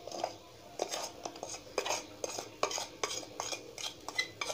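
A steel spoon clinking and scraping against a stainless steel canister while powdered sugar is scooped out into a steel bowl: an irregular run of sharp clinks, a few a second, some ringing briefly.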